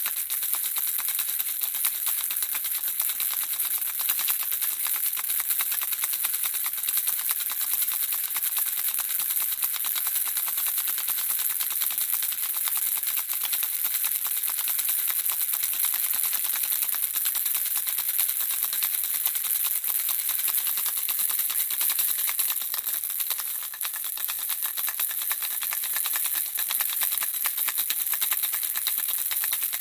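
Handheld baby rattle shaken steadily, the small objects inside making a dense, fast, bright clicking without a break. It eases briefly about two-thirds of the way through.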